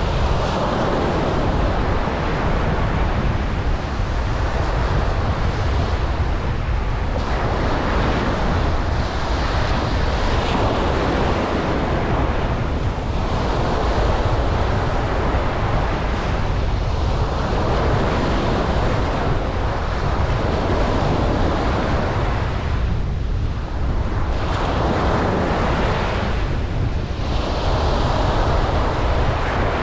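Ocean waves breaking and washing on a beach, swelling and ebbing every few seconds, over a steady low rumble of wind on the microphone.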